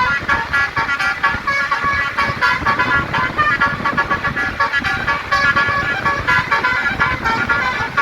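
Bus telolet basuri horn, a set of musical air horns, playing a fast tune of short notes over a low rumble.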